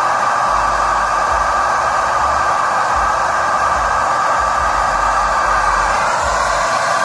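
Vacuum cleaner motor running steadily, an even whooshing hum.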